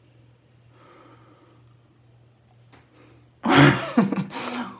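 Faint steady low hum, then, about three and a half seconds in, a loud breathy sound from a person close to the microphone, in two quick bursts lasting about a second.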